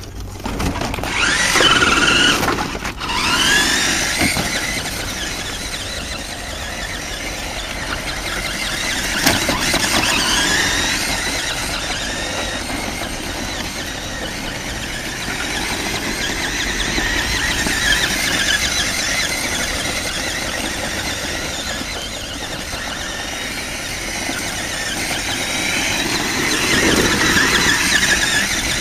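The electric drive motor and gearbox of a New Bright radio-controlled Hummer H2 toy truck whining as it is driven, the pitch rising and falling as it speeds up and slows down. It is loudest about two seconds in and again near the end.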